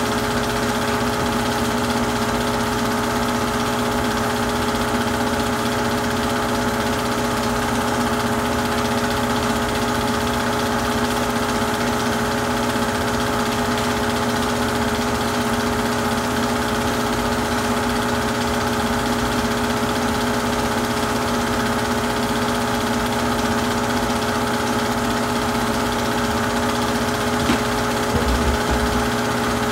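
Super 8 film projector running: a steady mechanical whir and hum with several fixed tones over a constant hiss.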